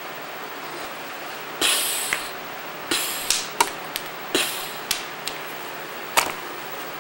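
Handling noise: several short swishes and light clicks, with the sharpest knock about six seconds in.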